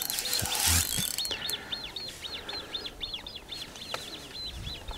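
A small songbird singing a fast run of repeated high chirps, about five a second, after a brief harsh rasp in the first second or so.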